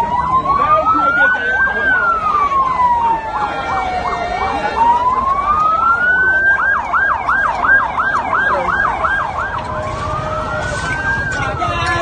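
Electronic sirens: a slow wail rising and falling about every four to five seconds, overlapped by a fast yelp sweeping about four times a second, the yelp strongest from about six to nine seconds in.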